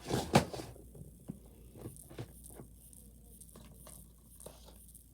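Fidget toys being handled and dropped into a bucket: a few sharp knocks at the start, then scattered light taps and rustles.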